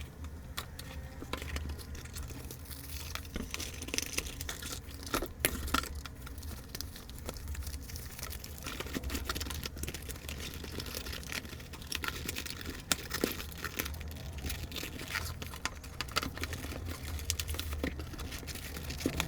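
Typing on a NextTime 75 mechanical keyboard fitted with Akko Ocean Blue switches: a run of irregular key clacks, with a steady low hum underneath.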